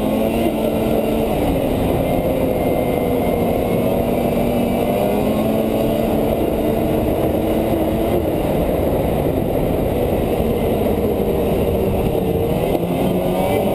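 Polaris 550 two-stroke snowmobile engine running at steady trail speed, its pitch wavering slightly with the throttle, over a constant low rumble of wind and track.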